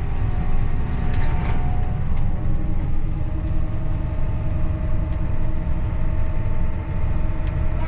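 John Deere 7830 tractor's six-cylinder diesel engine running steadily while pulling a field finisher, heard from inside the cab as a constant low rumble with a steady hum.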